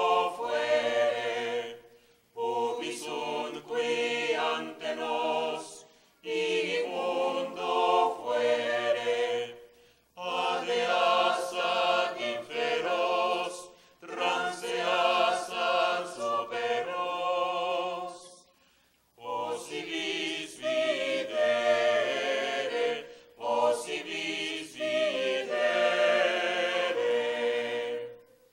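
Small mixed choir of men's and women's voices singing a cappella, in phrases of a few seconds with short pauses for breath between them.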